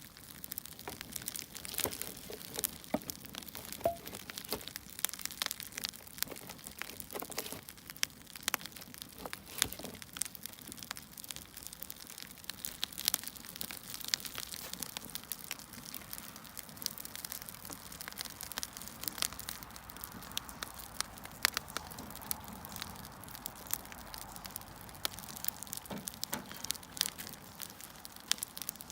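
Wood fire crackling: irregular sharp pops and snaps of burning logs over a soft steady hiss.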